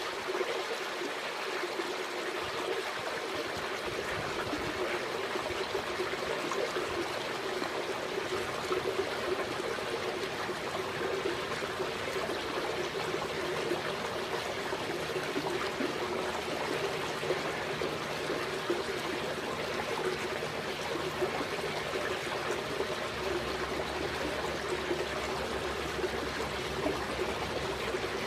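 Steady trickle of running water. A faint low hum comes in about halfway through.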